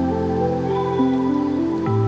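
Background music: calm new-age style music of held, sustained notes that change pitch every half second or so.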